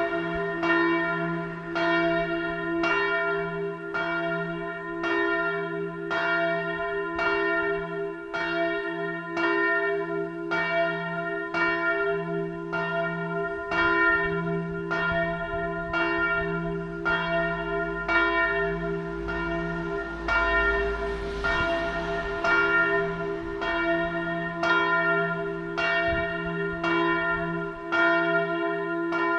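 The largest bell (bell 1) of St. Mariä Himmelfahrt in Ebrach, a single church bell swinging and tolling alone, struck evenly about three times every two seconds, its tones ringing on between strokes.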